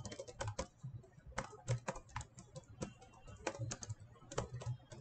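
Typing on a computer keyboard: irregular keystroke clicks, some coming in quick runs.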